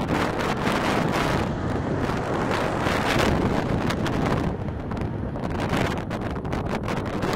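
Strong, gusty wind buffeting the microphone, with the engine noise of a jet airliner on its landing approach underneath. The gusts ease a little after about four seconds.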